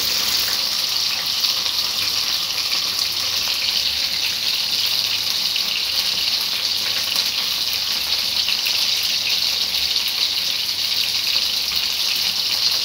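Cornflour-coated chicken pieces frying in hot oil in a pan, a steady dense sizzle that holds even throughout.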